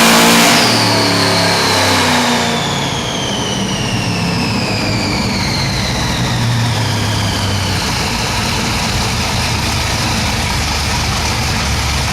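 8-71-supercharged 468 cubic-inch big-block Chevy comes off full throttle at the end of a dyno pull, about half a second in, and drops to a lumpy idle. Over that idle a high whine falls slowly in pitch as the car coasts down on the chassis dyno.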